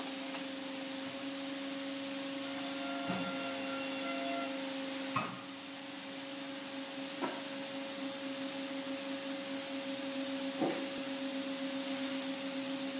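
Vertical single-beam stave-wood log splitter's hydraulic power unit running with a steady hum. A few sharp knocks of wood are heard as blocks are set under the wedge and split.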